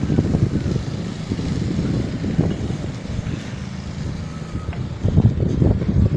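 Low, uneven rumble of an engine running, with wind buffeting the microphone.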